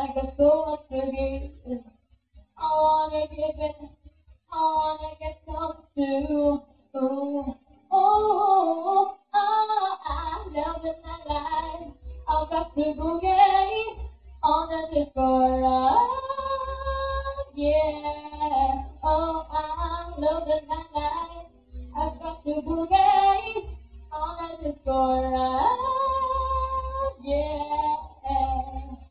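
A young woman singing a song through a handheld microphone, in phrases with a few long held notes that slide upward. A low rumble runs under most of the singing.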